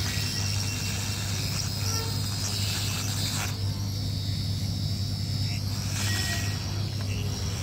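Hot air rework gun blowing steadily on a TV main board, a hiss over a low hum, as it melts the solder to seat a memory IC. About three and a half seconds in the hiss softens for a couple of seconds as the nozzle is drawn back from the board, then returns.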